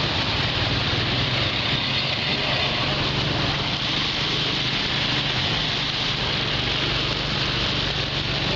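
A vehicle's engine drone, steady and unchanging, under a constant rush of wind and road noise, heard from on board as it drives along.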